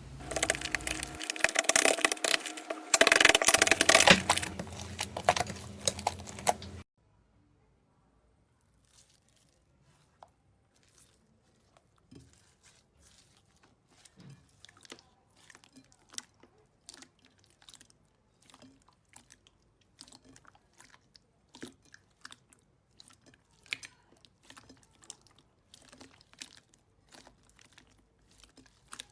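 Slime being squeezed and pressed, with a loud, dense crunchy crackling that cuts off suddenly about seven seconds in. After a short near-silence, a quieter stretch of faint, scattered clicks and pops follows.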